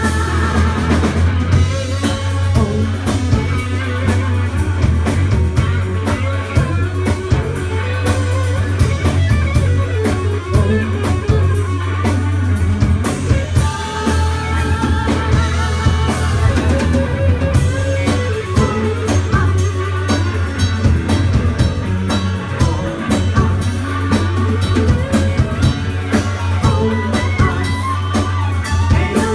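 A live rock band playing: electric guitars, bass guitar and drum kit, with lead and backing vocals singing. A strong, steady bass runs underneath.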